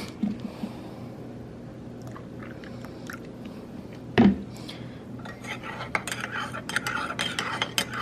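A spoon clinking against a coffee mug in a run of quick sharp clicks over the last few seconds, as if stirring in sugar and creamer, after a single loud knock about four seconds in. A steady low hum runs underneath.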